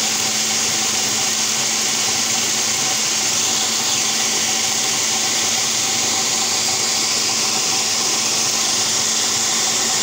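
Moulinex food processor running steadily at one constant speed, its blade grinding caramelized roasted almonds (almond praline) into a smooth paste.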